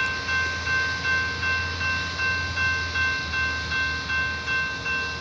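Railroad grade-crossing warning bell ringing steadily at about three strokes a second, over a low steady rumble.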